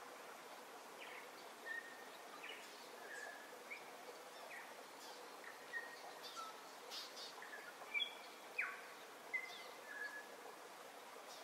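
Birds chirping: scattered short whistled notes and quick downward-sweeping calls over a steady faint hiss, with a few sharper chirps about eight to nine seconds in.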